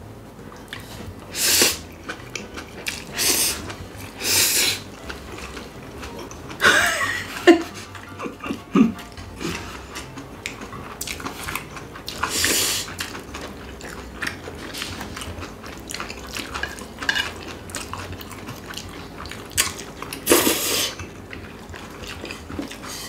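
Spicy cold bibim noodles being eaten: about six loud, short slurps of noodles, with chewing and the clink of chopsticks and spoons on bowls in between.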